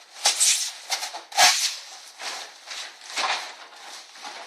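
Foil-backed foam insulation sheathing crinkling and scraping as it is bent and pushed into an aluminum garage door panel, with two sharp knocks, about a quarter second and a second and a half in.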